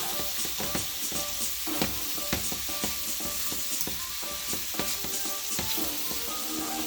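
Food sizzling in a hot frying pan while it is stirred, the utensil clicking and scraping against the pan many times over the steady hiss of the frying.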